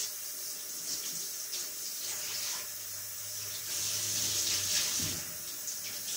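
Kitchen tap running steadily, water pouring into the sink.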